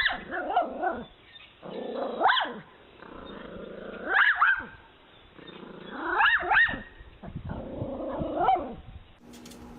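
A dog vocalizing in about five drawn-out calls, each sliding up and down in pitch, between barking and howling, with short pauses between them.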